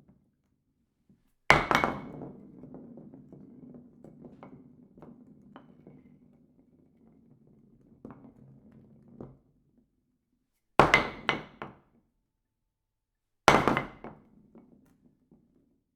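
Impact sound effects. A hard thunk about a second and a half in is followed by several seconds of small scattered clattering and rattling. After a pause come two more sharp knocks a few seconds apart, each with a quick follow-up strike or two.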